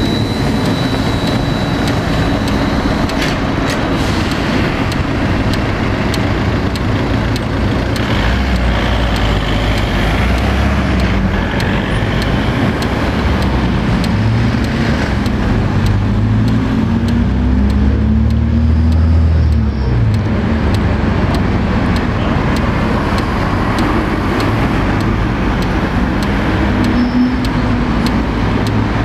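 Steady city road traffic: cars and buses passing, with a heavier vehicle's engine loudest about two-thirds of the way through.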